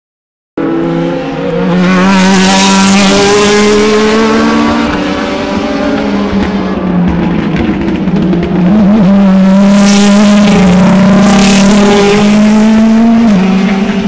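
DTM racing cars' V8 engines running loud at high revs as several pass close by in succession, the engine notes stepping and gliding in pitch with the throttle, with a louder rush as each car goes past. The sound cuts in abruptly about half a second in.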